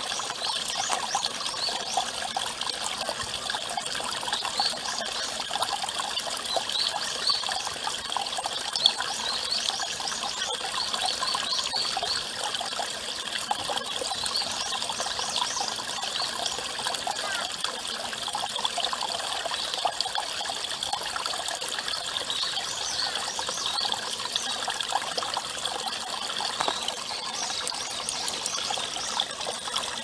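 Water trickling and splashing steadily: a thin stream from a pipe falls into a brimming ceramic basin, and the overflow pours from a stone spout into a stone cistern below.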